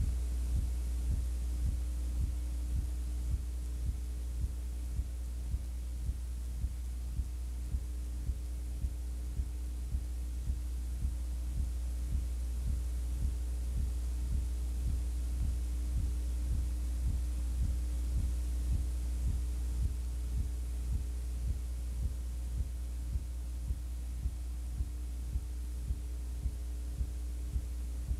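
Steady low electrical hum with a soft regular pulse about twice a second and no game sound: noise on the audio track of an old videotape transfer.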